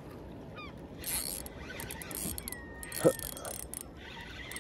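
Spinning reel being wound in, its gears giving a steady whirring rasp as the lure is retrieved, with a sharp knock about three seconds in.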